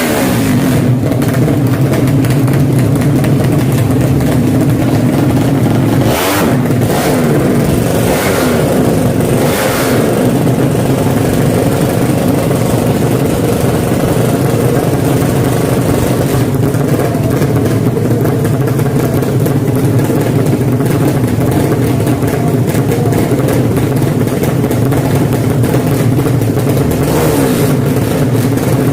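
Drag-racing motorcycle engines running loudly and revving, with short flares of louder noise about six, seven and nine seconds in.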